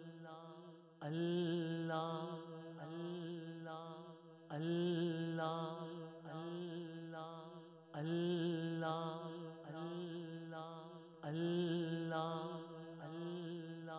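Devotional chant laid under the film: a voice chanting the same short phrase over and over, a new repeat starting about every three and a half seconds.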